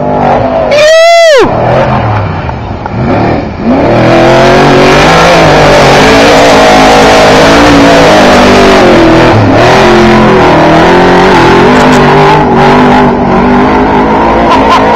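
Trophy truck engine running hard, its pitch shifting up and down, under a loud steady rush of wind and dirt from about four seconds in. A brief whine about a second in first rises, then falls.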